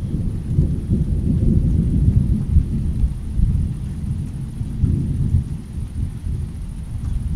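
Rain ambience dominated by a low, rolling rumble of distant thunder, swelling over the first few seconds and again about five seconds in.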